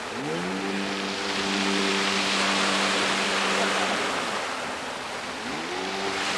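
Jet ski engine revving up and holding a steady high note as it pulls away through the surf, then dropping off and revving up again about five and a half seconds in. Breaking waves wash underneath.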